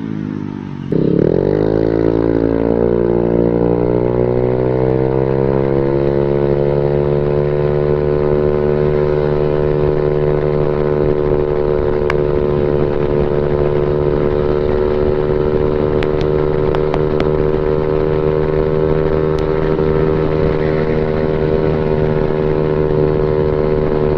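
Honda BeAT scooter's single-cylinder four-stroke engine running through an aftermarket racing exhaust under acceleration. The exhaust note rises sharply in pitch about a second in, then holds at a steady pitch as the automatic CVT keeps engine speed constant while the scooter gains speed.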